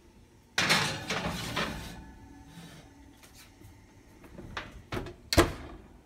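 Ceramic baking dish going onto a metal oven rack with a clatter that dies away over a second or so, then a few small clicks and the oven door banging shut near the end.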